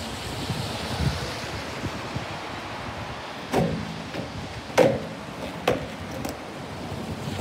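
Skateboard wheels rolling over brick paving, then three sharp clacks of the board striking the ground in the second half, the middle one loudest, as a flatground trick is attempted.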